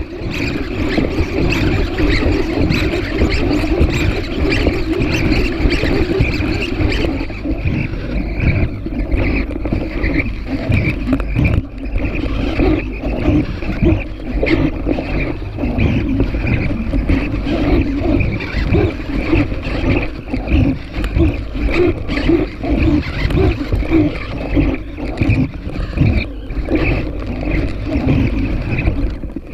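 Servo motors of a PhantomX hexapod walking robot whirring and whining in fast, uneven pulses as its legs step.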